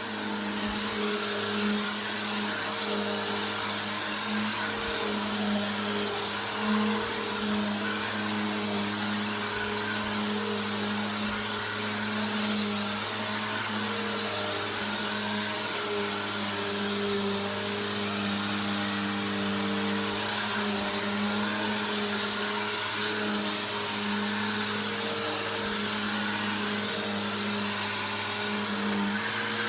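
Bissell PowerForce Helix 2191 upright vacuum cleaner running steadily: a continuous motor hum over airflow hiss, its pitch wavering slightly.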